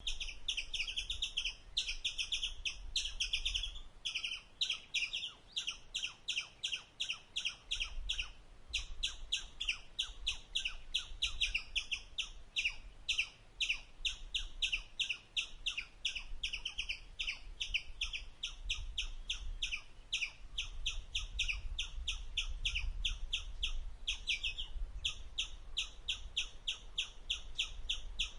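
Indian striped palm squirrel chirping: a fast, sharp, high-pitched chip call repeated three to four times a second, with one brief pause near the middle.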